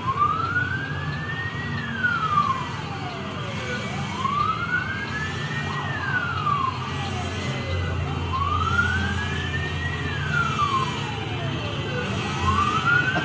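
An escort vehicle's siren in a slow wail, rising for about two seconds and falling for about two, repeated three times, over the low rumble of vehicle engines in the moving convoy.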